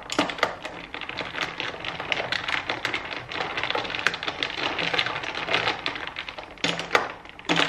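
Glass straw stirring a drink in a glass jar, with rapid, irregular clinking and tapping against the glass.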